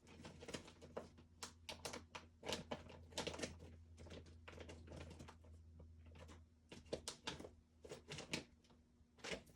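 Faint irregular clicks, taps and paper handling as craft supplies and printed labels are rummaged through on a table, with a low hum that stops about six and a half seconds in.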